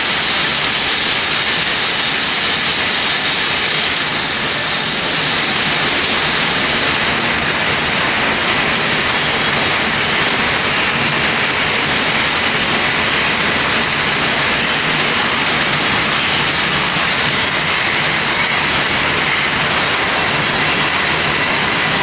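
Paper bag making machines running: a loud, steady mechanical clatter of rollers, shafts and drive belts.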